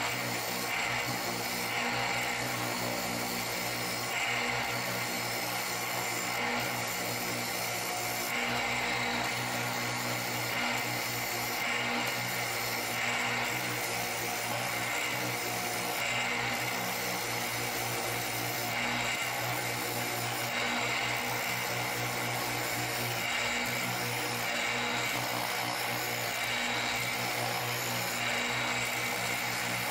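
Combination belt/disc sander running steadily, its sanding disc grinding the edge of a round cedar sign blank. The steady motor hum carries the even hiss of the abrasive on the wood as the edge is trued to the layout line.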